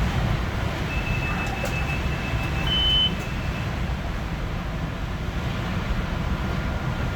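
Metro-North M3 electric multiple-unit train running at speed, a steady low rumble heard from inside the train. A thin high-pitched tone comes in about a second in and lasts a few seconds, with a brief brighter tone near its end.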